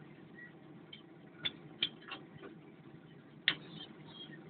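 Hand wrench clicking against metal fittings on a Caterpillar 950F loader's engine while lines are loosened for injection pump removal: four sharp, irregular clicks, the loudest about three and a half seconds in, over a low steady hum.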